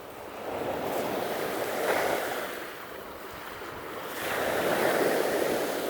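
Lake Erie waves washing in on a rocky beach, the wash swelling and falling back twice, about three seconds apart, with wind on the microphone.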